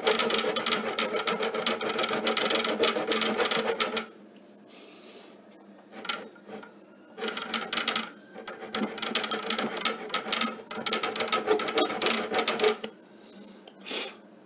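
Tactix miniature hacksaw cutting an aluminium threshold in rapid back-and-forth strokes. It stops about four seconds in, then starts again in several short runs of strokes.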